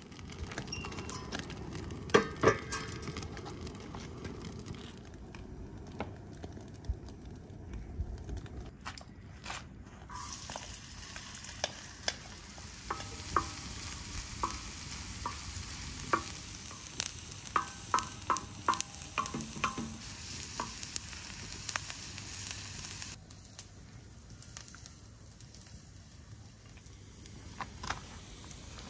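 Diced onions sizzling in a large black iron pan over a wood fire, stirred with a wooden spatula that taps and scrapes against the metal in quick irregular strokes. There are a couple of sharp knocks about two seconds in.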